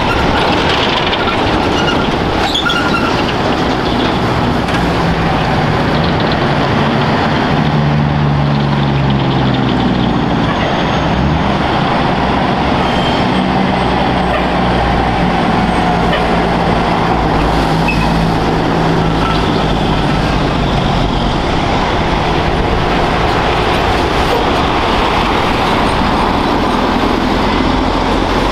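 Heavy diesel trucks with trailers driving past close by, their engine note falling and rising as they pull through, over steady tyre and road noise.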